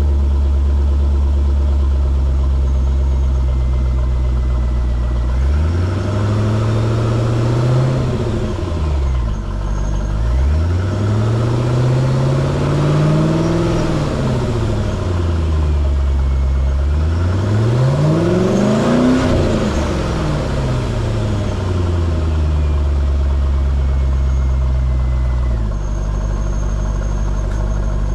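2002 Chevrolet Corvette's 5.7-litre LS1 V8 idling, then revved three times, each rev rising and falling back, the third the highest, before settling back to a steady idle.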